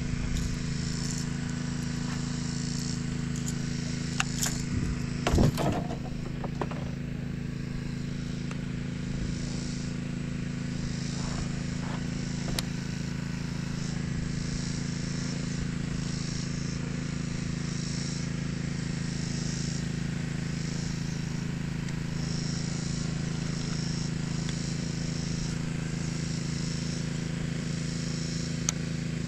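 Boat motor running with a steady low hum, with a brief clatter about five seconds in.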